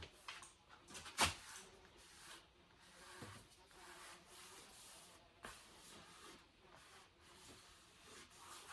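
Faint rubbing and scraping of painting strokes, with a few light taps, the sharpest about a second in.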